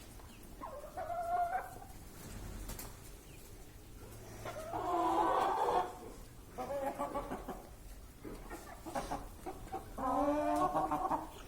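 Broiler chickens calling in four or so short bursts, the loudest about five seconds in, over a low background. A flock whose sneezing has eased, with few sneezes heard.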